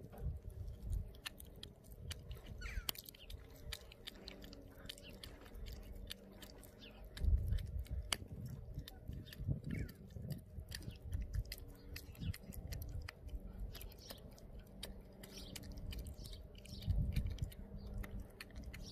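Pomeranian chewing and biting a raw duck foot, a run of irregular short clicks of teeth working the foot. Two louder low bumps come about seven and seventeen seconds in.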